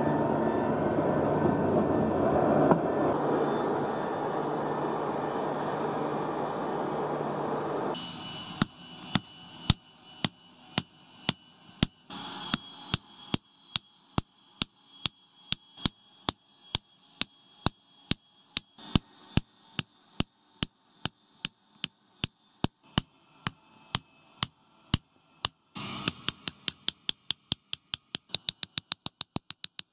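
Steady rushing noise from the charcoal forge for several seconds, then a hammer striking a red-hot steel bearing ball on an anvil, hand-forging it flat, about two blows a second, each with a ringing tone. Near the end the blows quicken to three or four a second.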